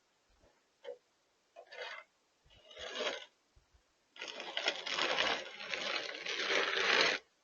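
All-metal snow shovel scraping through snow: a few short scrapes, then one long push of about three seconds.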